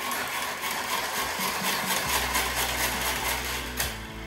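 Tupperware SuperSonic Chopper, a hand-pulled cord chopper, worked rapidly to chop half an onion: a fast whirring and rattling of the spinning blades that stops shortly before the end.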